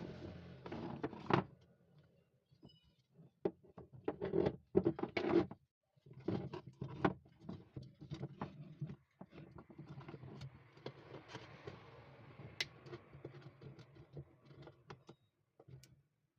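Irregular clicks, taps and knocks of small hard parts being handled, with a few louder knocks about four to five seconds in. Background music fades out in the first second or so.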